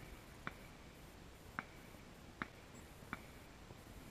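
Lit fuse burning down, giving about five faint, sharp crackles spread unevenly over a quiet hiss.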